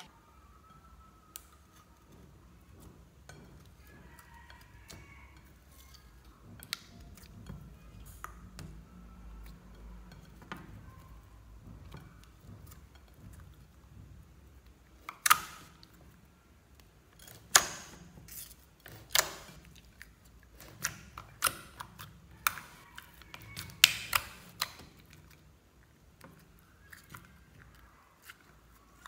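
Clear slime being squeezed and stretched by hand in a glass bowl: soft quiet squishing at first, then a run of sharp pops and clicks for about ten seconds in the middle, a dozen or so, some of them loud.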